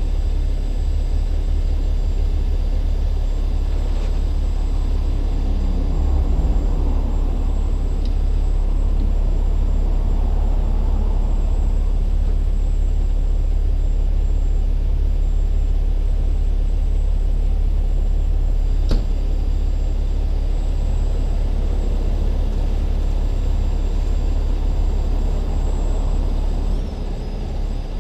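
Heavy Kenworth rotator wrecker's diesel engine running steadily, a low rumble. Two light clicks sound over it.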